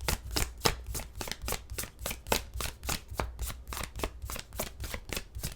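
Tarot deck being shuffled by hand: a fast, steady run of card clicks and snaps, many each second, with a faint low hum underneath.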